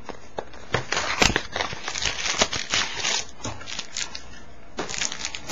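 Foil trading-card pack wrappers crinkling and tearing as packs are opened: a quick run of sharp crackles, with a short lull near the end.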